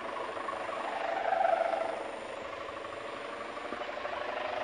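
Kite hummer (a Javanese sendaren bow on a flying kite) droning in the wind: a steady hum that swells about a second in and settles back.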